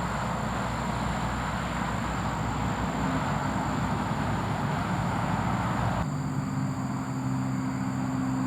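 Steady engine noise from a vehicle. About six seconds in it changes abruptly to a steady droning hum with several low tones.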